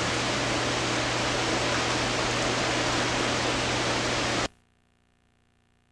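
Heavy rain falling steadily, an even hiss with a low steady hum beneath it, cutting off abruptly about four and a half seconds in.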